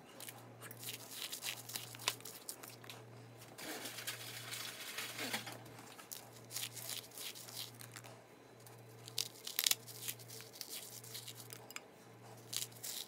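Plastic Oreo cookie packaging being torn and crinkled, a run of irregular crackles.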